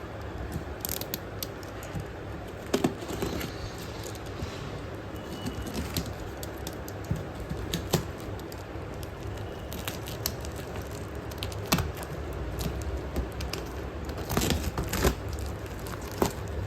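A parcel being handled and opened by hand: scattered light clicks, taps and crinkles of packaging, coming closer together near the end.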